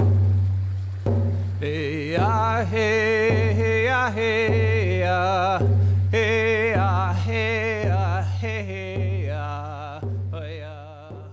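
Hand drum song: a deep drum struck steadily about once a second, with a voice chanting wavering vocables over it from about two seconds in. The song fades near the end.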